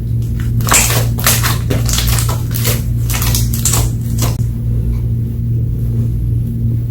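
Slime being squished and kneaded by hand, a rapid run of crackly, squelchy crunches that stops about four and a half seconds in, over a steady low hum.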